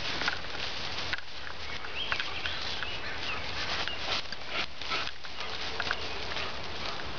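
Long grass rustling and swishing as a Great Dane cross runs through it carrying a long stick, with many small crackles and light knocks.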